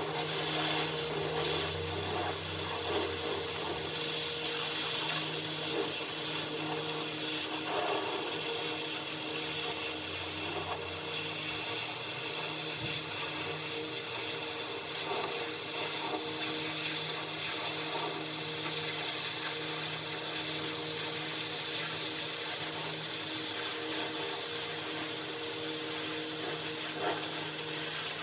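A motor-driven tool running steadily, with a continuous hissing, rubbing noise over a low hum.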